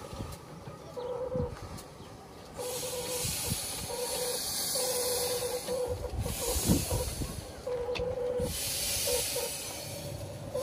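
A 15-inch-gauge miniature steam locomotive hissing steam in repeated bursts of a second or so, with a mid-pitched tone coming and going underneath.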